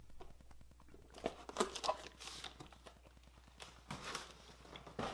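Faint handling noises: crinkling and rustling with a few light clicks and scrapes, scattered irregularly.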